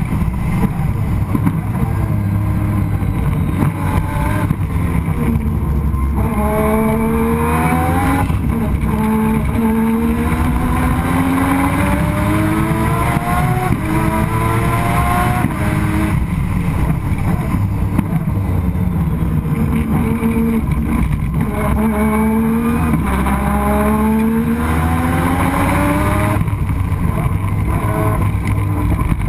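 Turbocharged 20B three-rotor rotary engine of a Mazda RX-7 race car at racing speed, heard from onboard. Its pitch climbs again and again as it accelerates through the gears, dropping at each shift and lift-off. It is running on only 8 psi of boost after losing boost pressure.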